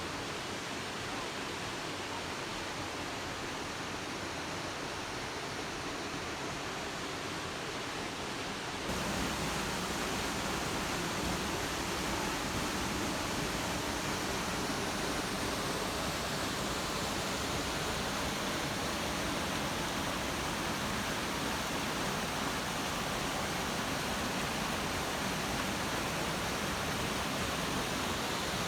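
Steady rush of water, which becomes louder and fuller abruptly about nine seconds in.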